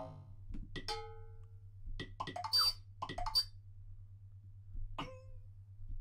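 Final Cut Pro 'Cartoon Accent' sound effects previewed one after another: about five short comic hits and boings roughly a second apart. The first slides down in pitch and another rings on with a held tone.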